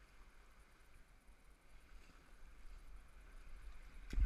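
Steady rush of river water running over rapids, with a single sharp knock near the end.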